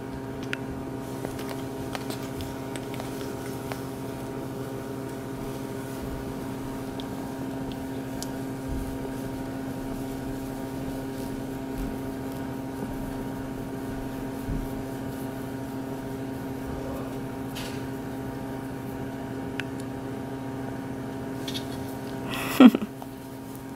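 Steady low machine hum, with a few faint, soft clicks from a relaxed umbrella cockatoo working its beak. A short sliding squeak falls in pitch near the end.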